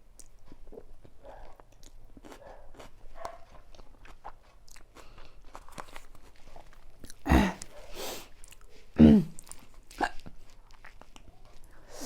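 A person chewing very spicy chilli noodles, with small wet mouth clicks, then two loud hiccups about seven and nine seconds in.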